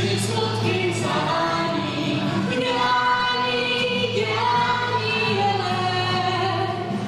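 Live song sung by several voices, a woman's voice among them, with acoustic guitar accompaniment, amplified through a PA.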